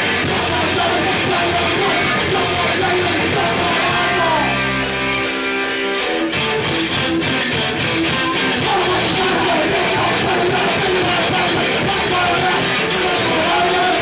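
Hardcore punk band playing live: loud distorted electric guitar with bass and drums. About four and a half seconds in the band drops to a single held, ringing chord for a moment, then the full band comes back in.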